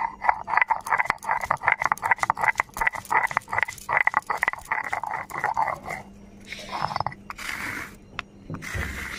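Garlic and ginger being crushed on a sil-batta, the stone roller knocking rapidly against the stone slab as it breaks up the cloves. About six and a half seconds in this gives way to longer back-and-forth grinding strokes of stone on stone.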